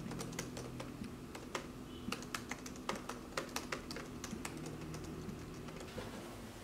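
Typing on a MacBook laptop keyboard: a quick run of key clicks that thins out after about four and a half seconds, over a faint steady low hum.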